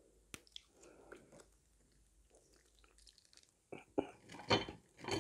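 Faint rustle and small clicks of a plastic ketchup sachet being squeezed into a dip tray. Then, near the end, louder sharp crackles as crispy breaded fried squid rings are picked up in a plastic-gloved hand.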